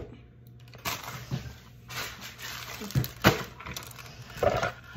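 Plastic pouch of brownie mix being handled, with a few sharp crinkles and taps, the loudest about three seconds in.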